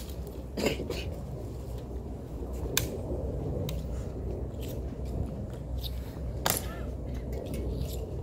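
Tomb sentinels' rifle drill and steel-tapped shoes: a few sharp, widely spaced clicks and slaps of hands on rifles and heels on stone, the loudest about half a second in, near three seconds and about six and a half seconds in, over a low steady rumble.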